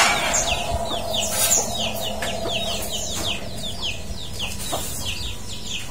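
Birds chirping: a long run of short, falling peeps, a few each second, over a faint steady hum.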